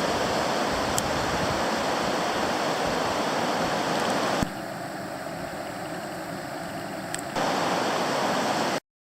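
Rushing floodwater of the swollen South Fork Eel River, a steady loud roar of water. About halfway through it drops to a quieter rush for about three seconds, then returns at full strength before cutting off suddenly near the end.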